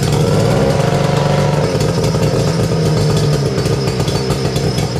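Vintage Kiekhaefer Mercury two-stroke racing outboard running fast and steadily on a test stand, with a rapid, even firing rattle.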